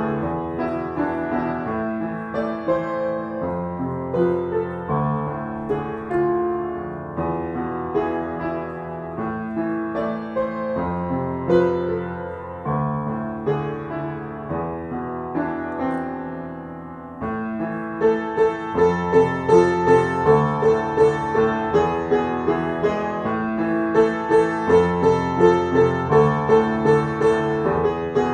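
Piano music, a slow piece of changing chords. About two-thirds of the way through it grows louder, with one middle-register note repeated about twice a second under the chords.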